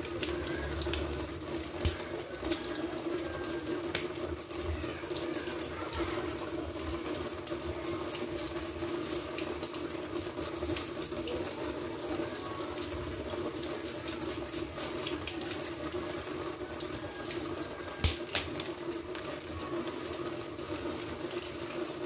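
Tap water running steadily into a basin as mud crab pieces are rinsed and scrubbed under the stream, with scattered sharp clicks and knocks of shell, a few louder ones about 18 seconds in.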